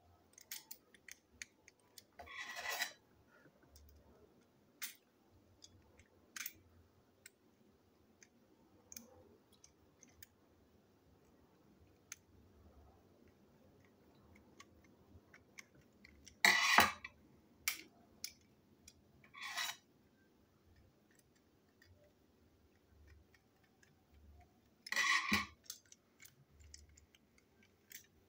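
Light clicks and taps of a plastic toy train chassis, small screws and a screwdriver being handled on a tabletop, with four louder scraping rattles spread through it.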